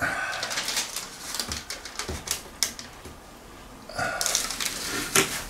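Foil vapour barrier tape being pulled off its backing and handled, with irregular crackling and rustling.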